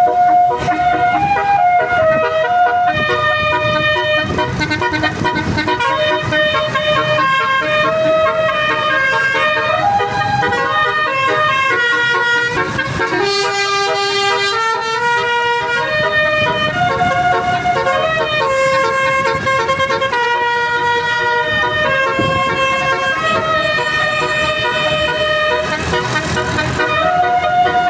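Indonesian bus telolet horn playing a tune: several horn tones sounding together, stepping from note to note every second or so.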